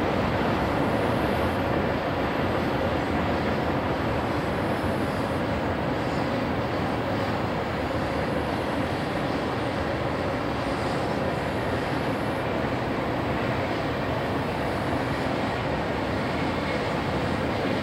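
Double-stack intermodal freight train's container cars rolling past as a steady, even rush of wheels on rail.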